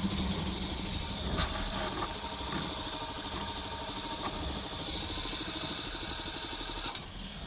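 250 cc single-cylinder trail motorcycle engine running steadily, with a steady hiss over it.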